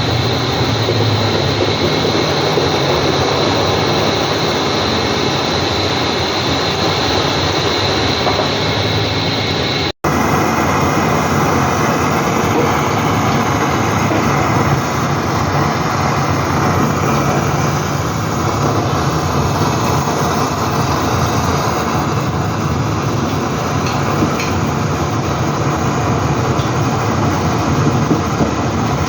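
LG washing machines running under test, a steady mechanical rumble and whir of the drums and motors. The sound cuts out for an instant about ten seconds in.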